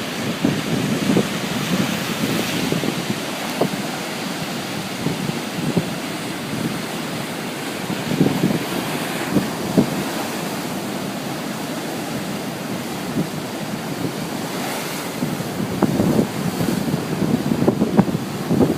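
Ocean surf breaking and washing in a continuous roar, swelling and easing every few seconds, with wind buffeting the microphone in gusts.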